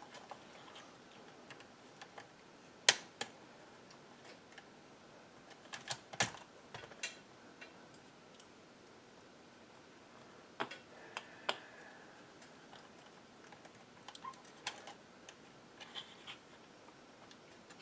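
Irregular small clicks and taps of plastic parts and hand tools being worked on a bench, as a plastic HVAC control panel is taken apart, with one sharper knock about three seconds in.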